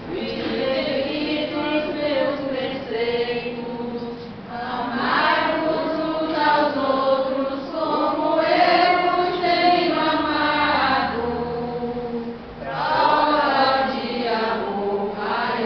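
Congregation of men, women and children singing a hymn together, in long sung phrases with short pauses between them.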